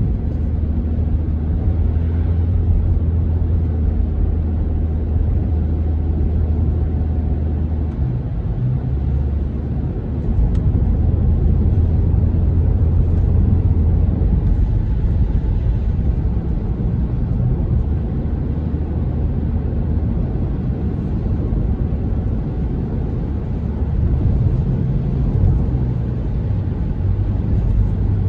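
A car heard from inside the cabin while driving on a wet road: a steady low engine and road drone with tyre noise, its engine note shifting a few times as the speed changes.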